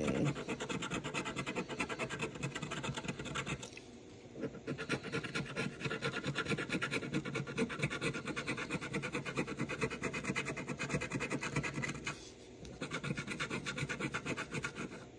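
Scratch-off lottery ticket being scratched: rapid back-and-forth scraping strokes on the coated card, in three runs with short pauses about four seconds in and about twelve seconds in.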